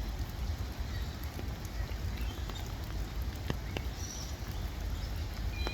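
Outdoor background noise: a steady low rumble, with a few sharp clicks and faint chirps about two-thirds of the way through.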